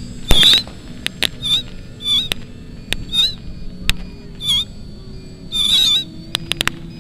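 Sharp cracks of small pyrotechnic charges going off, the loudest about a third of a second in and a quick run of them near the end. Short, squawking calls that wobble in pitch come roughly once a second between the cracks.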